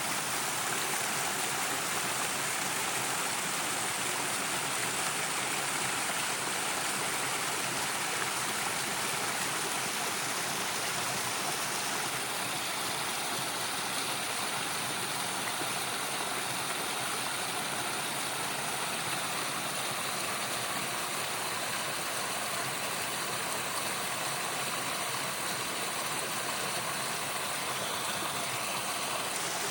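Stream water running with a steady rushing.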